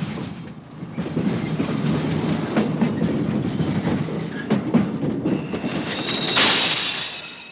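Freight cars rolling down a hump-yard slope by gravity, their steel wheels rumbling and clicking over the rail joints and switches. About five seconds in, a high steel-on-steel squeal with a loud hiss rises and then fades, as the yard's retarders grip the wheels to brake the cars.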